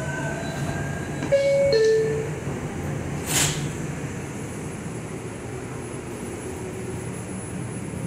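R142 subway car's two-tone door-closing chime, a higher note then a lower one, about a second and a half in, then a short sharp hiss about three seconds in, over the car's steady low hum as the train starts to pull out of the station.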